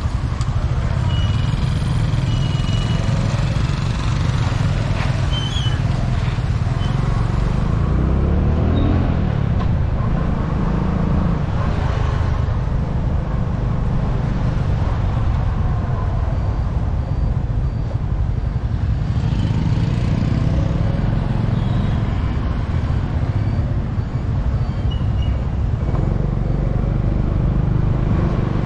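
Riding a motor scooter through town traffic: a steady low rumble of the bike's engine and the road, with motorbikes and tuk-tuks passing close by.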